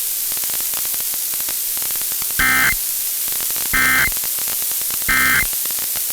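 Steady radio static hiss, broken by three short, loud bursts of buzzy data tones, evenly spaced about a second and a half apart: the EAS SAME end-of-message code that closes an Emergency Alert System test broadcast.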